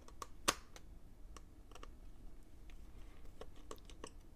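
Scattered light clicks and taps of a precision screwdriver and the tiny screws holding a MacBook Air 2020's trackpad cable, with one sharper click about half a second in.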